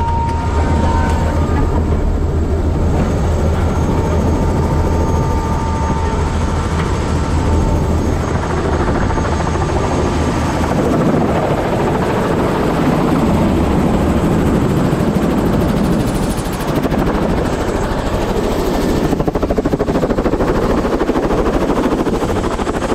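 Tour helicopter running on the ground with its rotor turning. A low steady hum and a thin whine are heard first from inside the cabin, then about eight seconds in the sound opens into a broad, loud rushing noise out in the open near the turning rotor.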